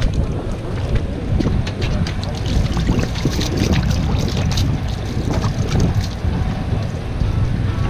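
Steady wind noise on the microphone over a low rumble on an open boat at sea. About three to five seconds in comes a run of short clicks and splashes as hands work in a bucket of water.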